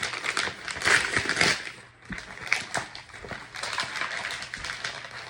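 Gift wrapping paper being torn and crumpled by hand in irregular crackling bursts, loudest about a second in, with a brief pause near two seconds.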